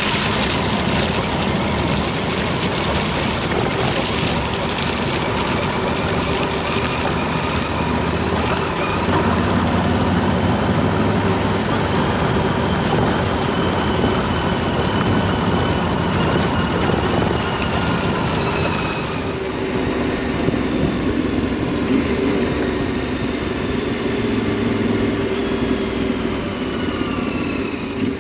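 Yamaha Ténéré 700's parallel-twin engine running as the motorcycle rides a gravel track, mixed with tyre and wind noise. The engine pitch slowly falls twice as the bike eases off, and the gravelly hiss lessens about two-thirds of the way through.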